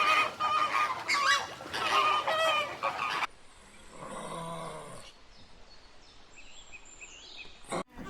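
Birds calling loudly in a quick run of sharp calls for about three seconds. The sound then cuts suddenly to a quieter stretch with one lower, drawn-out animal call.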